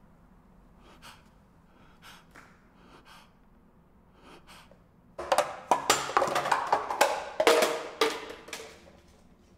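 Faint, short gasping breaths from a man, a second or so apart. About five seconds in comes a loud burst of rapid, clattering percussive hits, which fades out near the end.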